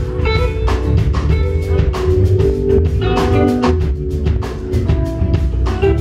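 Live band playing: a drum kit keeps a steady beat under electric guitar and keyboard.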